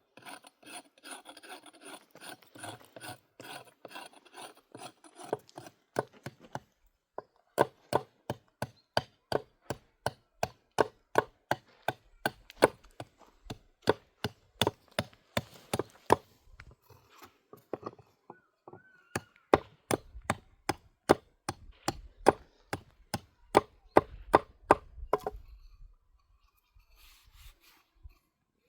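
Rubbing and scraping for about the first six seconds, then a long, steady series of sharp strikes, about two a second, that stops shortly before the end.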